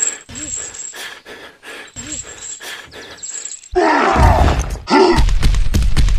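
Soft clicks about twice a second with short groans. About four seconds in comes a loud roar, and then the loud, rapid chugging of a tractor engine.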